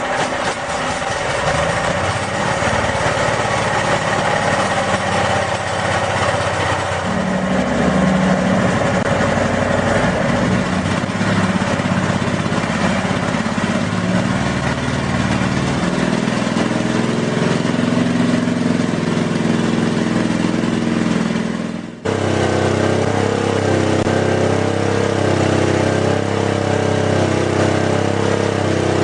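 Honda GX390 single-cylinder engine running steadily. About 22 seconds in the sound cuts abruptly and resumes at a slightly different, gently wavering pitch.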